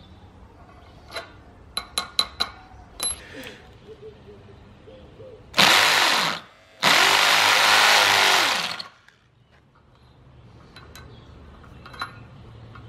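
Corded electric drill boring into a concrete lintel with a masonry bit: a short burst, then a longer run of about two seconds, the motor speeding up and slowing down each time. A few sharp clicks come before and after the drilling.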